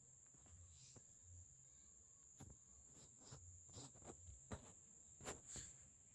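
Near silence: faint room tone with a steady high-pitched whine and a scattering of faint clicks, most of them in the second half.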